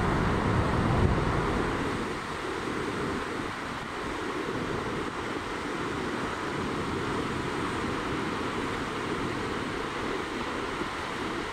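Ocean surf breaking and washing in: a steady rush of white water with a low rumble, a little louder for the first two seconds.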